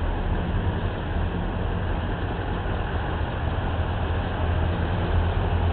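Scania R620 truck's V8 diesel engine idling steadily with a low, even rumble.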